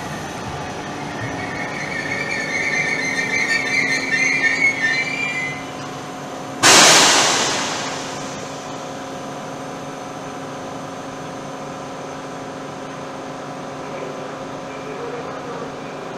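Malpensa Express train braking to a stop at the platform: a high brake squeal grows over the first five seconds, then a sudden loud hiss of air about six and a half seconds in fades over a second or so, leaving the train's steady hum.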